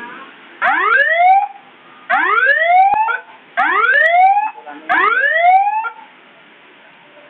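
Custom-built nine-tone electronic siren sounding a whoop tone: four rising sweeps, each about a second long and cut off at the top, then falling silent about six seconds in.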